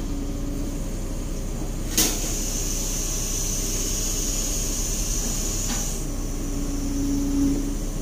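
Excavator engine running steadily, heard from inside the closed cab. A sharp click comes about two seconds in, and a thin high whine runs from then until about six seconds.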